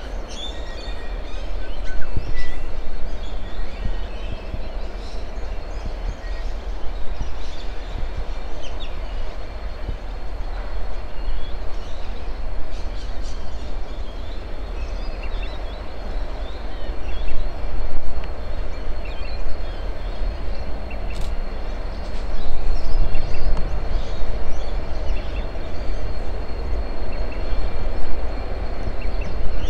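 Freight train's diesel locomotives rumbling as they crawl at very slow speed out of a tunnel and round a curve, growing louder about two-thirds of the way through. Birds chirp over it.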